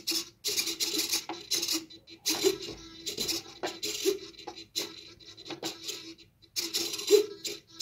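Steel marble rolling and clinking across a wooden BRIO labyrinth board as the motors tilting the board buzz, in stop-start bursts of a second or so as the automatic controller steers the ball along the maze.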